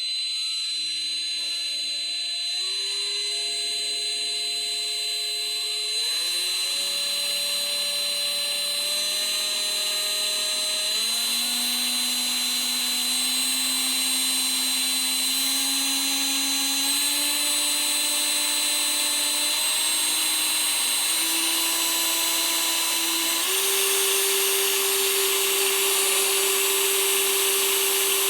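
Propeller plane engine in flight: a steady mechanical drone with a high whine, its lower tone stepping up in pitch several times.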